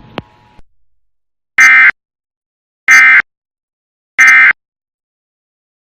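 Emergency Alert System End of Message code: three short, identical bursts of SAME digital data screech, about 1.3 s apart, that mark the end of the alert.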